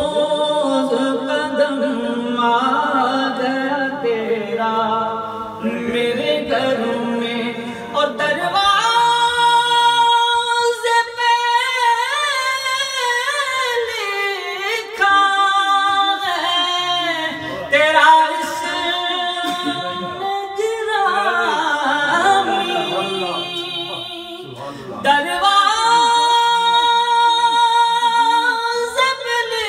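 A man singing an Urdu devotional song unaccompanied into a hand-held microphone, drawing out long, ornamented held notes.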